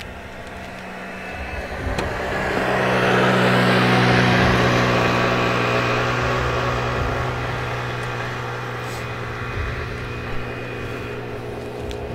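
A car passing: a rush of engine and road noise swells over a couple of seconds, peaks, and slowly fades, over a steady low engine hum. A sharp click comes at the very end.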